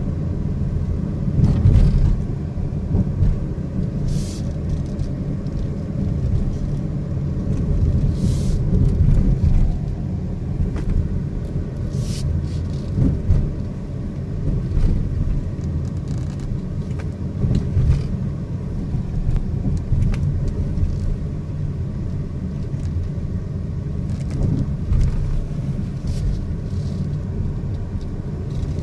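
Car driving with steady road and engine rumble, a faint whine running through it, which the driver hears whenever the car turns left. A few short clicks come through it.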